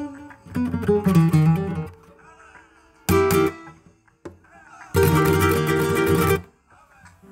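Nylon-string flamenco guitar closing a piece. A few picked notes fade, then a sharp strummed chord comes about three seconds in. A longer burst of rapid strumming follows from about five seconds to six and a half, then rings away.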